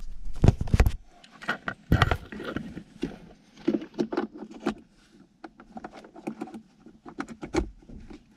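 Handling noise in a car's centre console: irregular clicks, knocks and rustles of plastic and cloth as an LED kit's adapter is plugged into the 12-volt power socket. The loudest knocks come in the first two seconds, with lighter clicks scattered after.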